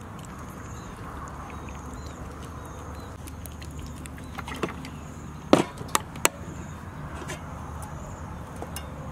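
Insects trilling in the background: a short high buzz repeating every second or so over a steady low outdoor hum. A little past the middle come four sharp clicks in quick succession.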